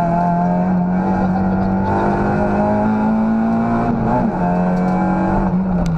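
Citroën Saxo rally car's 1.6-litre four-cylinder engine running under load, heard from inside the cabin: revs climbing slowly, a brief break in pitch about four seconds in, then falling near the end.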